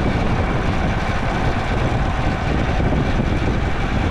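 Motorcycle on the move, its engine running under a steady rush of wind and road noise on a bike-mounted microphone.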